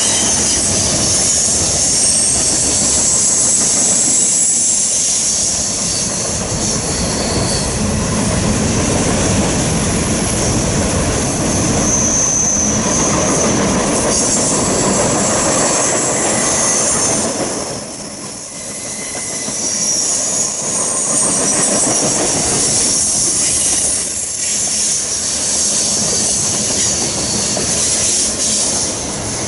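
Canadian Pacific freight train's cars rolling past at close range: a steady rumble of steel wheels on the rails, with high-pitched wheel squeal that comes and goes. The sound drops briefly about eighteen seconds in.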